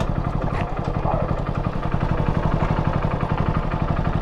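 Small motorcycle engine idling, a steady, even low putter.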